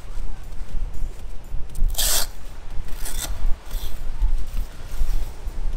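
Wind buffeting the microphone while the zipper of a wing-foil bag is pulled open: one loud zip about two seconds in and a shorter one about a second later.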